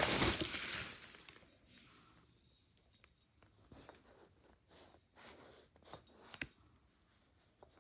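Crinkling and rustling, loud for about the first second and then stopping, followed by faint scattered clicks and light taps of small objects being handled.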